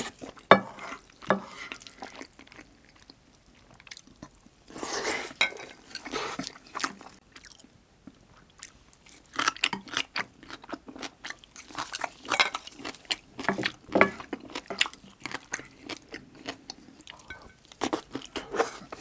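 Close-miked chewing and wet mouth sounds of someone eating jjajang rice and side dishes, with occasional crunching, coming in irregular clusters of short smacks.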